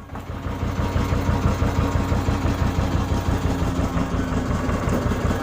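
Boat engine running steadily with a fast, even throb. It comes in suddenly and grows louder over the first second or so.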